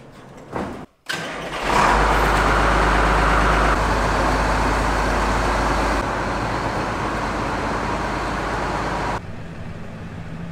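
Large farm tractor's diesel engine running steadily, loud and close with a deep rumble, starting after a short noise about a second in; its level drops abruptly a few times where the footage cuts.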